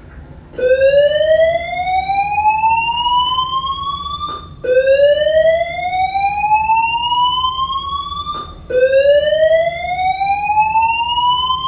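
School fire alarm evacuation system sounding its slow whoop tone: three rising sweeps, each climbing in pitch for about four seconds, with a short break between them.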